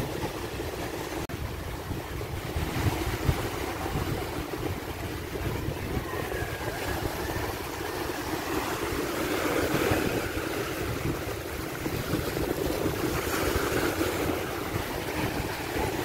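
Small sea waves breaking and washing up a sandy shore, with wind rumbling on the microphone. The surf swells louder about ten seconds in and again near the end.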